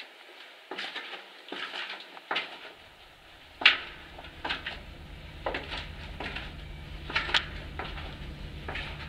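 Footsteps going down stairs, crunching and scraping on grit and debris about once a second, with one louder crunch a little under four seconds in. A low steady hum comes in about three seconds in.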